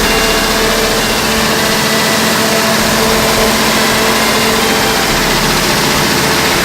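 Isuzu 6BD1 inline-six diesel engine running steadily and loudly, with a few constant tones over the engine noise.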